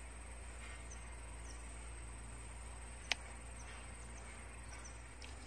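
Quiet pond-side ambience: a steady low hum with a few faint, short, high chirps, and one sharp click about three seconds in.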